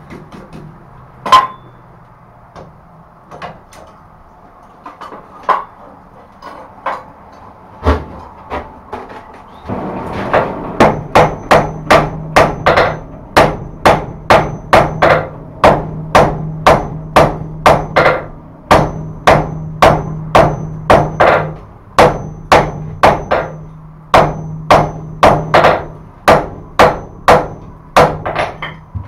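Hand hammer striking a bar of steel at welding heat on an anvil: a few scattered blows at first, then from about ten seconds in a steady run of strikes about two a second. The blows are setting a forge weld along the strip, working from the end back toward the held end.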